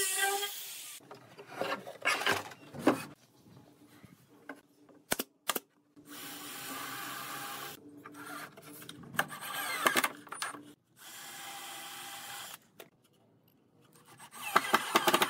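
An angle grinder sanding wood with a disc, its steady whine stopping about a second in. After that, a cordless drill bores holes into wooden boards in several short runs of a second or two each, with clicks and knocks between them.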